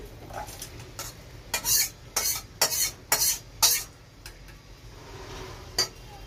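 A metal spoon scraping the inside of a metal cooking pot as curry is scooped out into a bowl. There are about five quick, loud scrapes a couple of seconds in and one more near the end.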